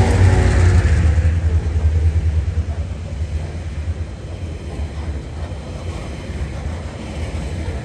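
The diesel engine of TasRail locomotive 2054 rumbling as it passes, dying away over the first two or three seconds. A quieter, steady rumble of coal hopper wagons rolling past on the rails follows.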